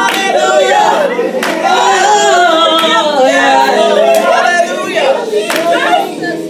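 Gospel singing by a small group of church singers, with hand-clapping and a sharp beat about every second and a half over a steady held chord underneath.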